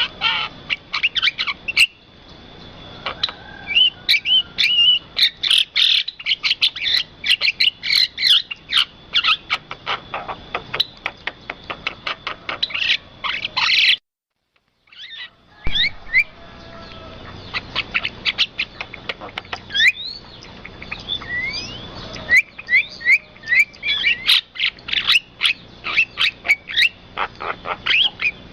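Birds chirping and whistling in quick, dense runs of short calls, some of them sliding in pitch, with a brief break in the sound about halfway through.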